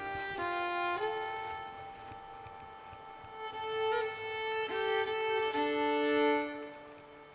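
Closing music: a slow violin melody of long held notes, sometimes two at once, fading out near the end.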